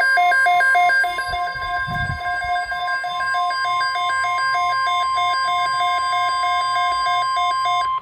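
Weather alert radios sounding a severe thunderstorm watch alert: rapid pulsing beeps over a steady high tone, the NOAA Weather Radio 1050 Hz warning tone. Both stop abruptly together near the end. A brief low thump about two seconds in.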